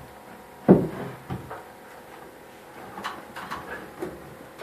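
Wooden framing being handled overhead: one heavy wooden thump less than a second in, then a few lighter knocks and taps around the three-second mark.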